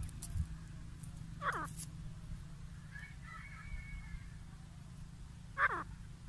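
Grey francolins calling: two short, harsh calls that drop steeply in pitch, about four seconds apart, with a fainter call between them, over a steady low hum.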